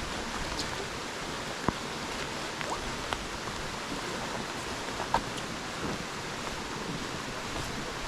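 Steady rain falling, an even hiss with scattered single drops tapping close by; the sharpest taps come just under two seconds in and a little after five seconds in.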